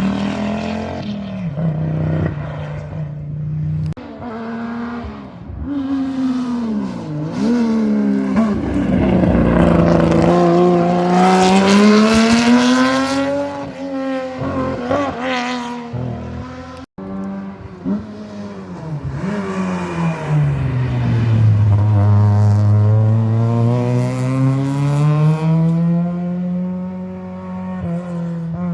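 Rally cars at speed on a stage, one after another: engine pitch climbing under throttle and falling on lifts and downshifts, with some tyre noise. A sudden break about two-thirds of the way through, then a second run where the engine note sinks low and climbs back to a steady high pitch.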